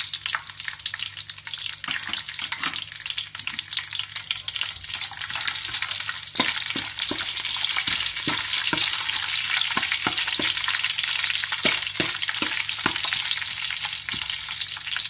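Whole garam masala spices and black cumin sizzling and crackling in hot oil in a large aluminium pot, being roasted at the start of a pulao. The sizzle grows louder about six seconds in, with scattered clicks of a metal spoon stirring against the pot.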